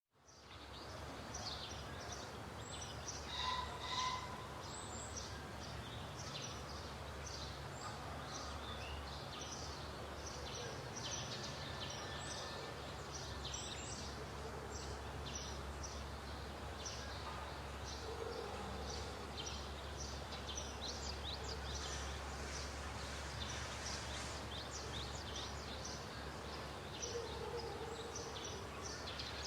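Many short, high chirps from small animals, coming thick and fast over a steady low hum, with one louder pitched call about three to four seconds in.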